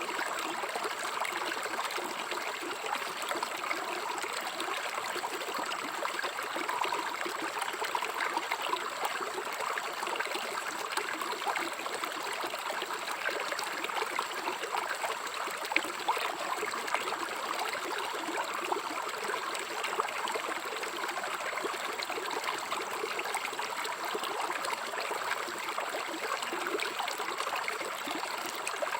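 River water flowing steadily over stones, an even, unbroken rush with a faint steady high tone behind it.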